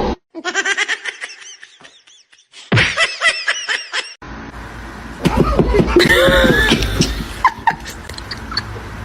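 People laughing in quick repeated bursts, breaking off and starting again a couple of times, with background noise under the later laughter.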